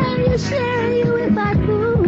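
Female lead vocal singing a soul-pop song with band accompaniment, in demo recording quality; the voice holds long notes that bend between pitches.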